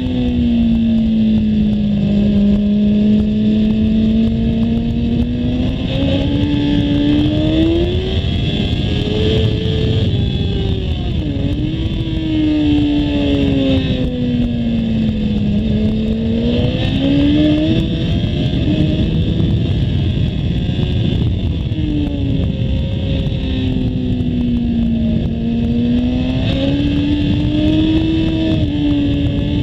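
Kawasaki ZX-10R's inline-four engine heard from on board at track speed, its pitch climbing under acceleration and dropping off several times as the rider brakes and leans through corners. A steady rush of wind runs underneath.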